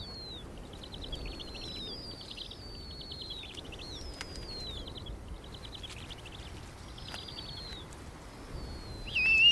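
Snowy owl chicks' high-pitched begging calls while being fed: thin falling whistles and quick chittering trills, repeating about every two seconds, with a louder call near the end.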